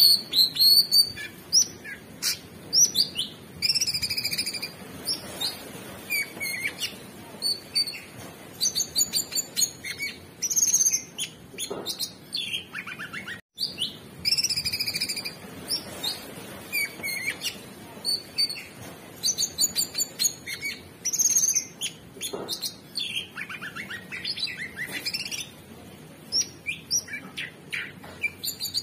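Male orange-bellied leafbird singing a fast, varied song of high chirps, slurred whistles and rapid trills in quick succession, with a split-second dropout about halfway through.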